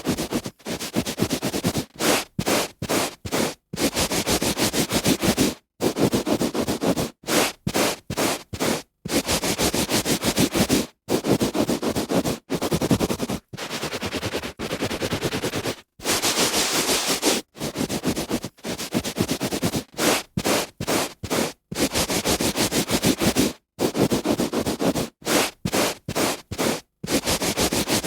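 A hand rubbing on carpet: repeated scratchy rubbing strokes, some long and some quick, in an irregular rhythm broken by brief dead-silent gaps.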